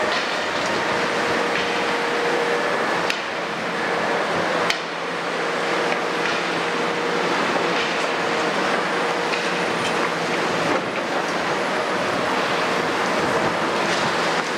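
Kobelco 350 excavator's Hino six-cylinder diesel running steadily under load as the machine lifts a full bucket of soil and swings it over a tipper truck. There is a steady whine in the first few seconds and a few sharp knocks.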